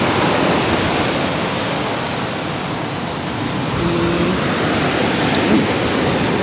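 Steady rushing outdoor noise with no distinct events, and a brief low hum about four seconds in.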